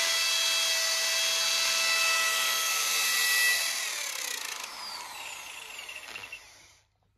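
Corded electric drill boring into a wall: the motor runs at a steady whine for about three and a half seconds, then is released and winds down, its pitch falling, and stops shortly before the end.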